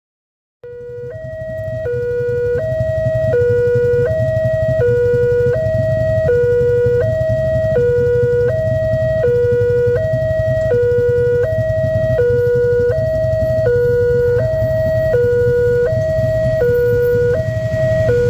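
Electronic level-crossing warning alarm sounding a steady two-tone alternating signal, about three tone changes a second, over a steady low rumble; it signals that a train is approaching the crossing. It starts after a brief silence and builds up over the first second or two.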